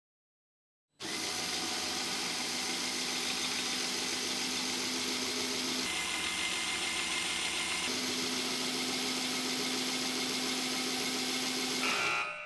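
Small LEGO electric train motor running with a steady whine and gear noise, starting about a second in and cutting off near the end, as it drives a train with only one driven wheel that fails to climb the steep slope.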